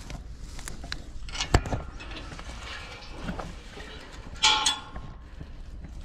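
Footsteps and a galvanised metal kissing gate being pushed and swung through: a sharp knock about a second and a half in, and a ringing metallic clang a little before the end.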